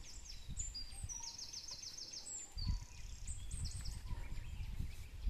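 Wild birds chirping and calling, with short high notes that drop in pitch and, about a second in, a quick evenly spaced run of about seven high notes. A low rumble runs underneath.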